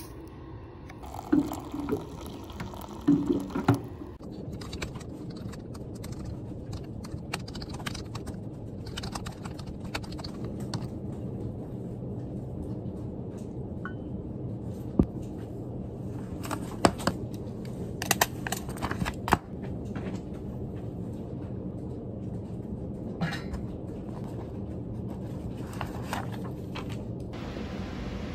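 A few sharp clinks at a steel tumbler as instant coffee is made, then steady office room noise with scattered light keyboard clicks.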